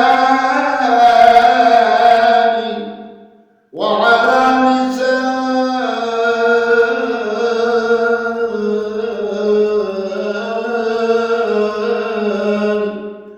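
Male voice chanting an Islamic devotional supplication (istighfar) in long, drawn-out melismatic notes. The voice breaks off briefly about three and a half seconds in, then holds one long ornamented line.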